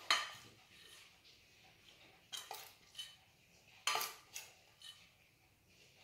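Light clinks and knocks of a metal kitchen utensil against cookware while lasagne is being layered, about eight separate strikes spread irregularly over several seconds, some with a short high ring.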